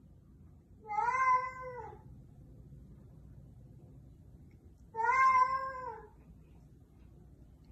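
Tabby cat meowing twice, each a drawn-out meow of about a second that rises and then falls in pitch, about four seconds apart.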